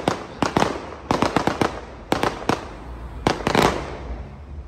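Aerial fireworks going off in a rapid, uneven string of sharp bangs, each trailing off briefly. The bangs come in clusters, with a short pause a little past halfway, and the loudest fall near the end.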